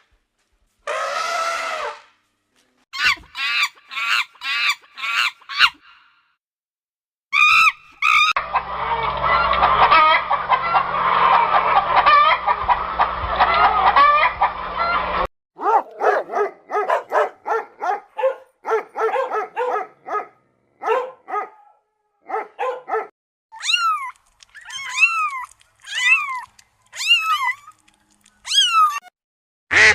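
Domestic fowl calling in a series of short clips: bursts of repeated clucks and honks, with several seconds of a whole flock calling at once in the middle.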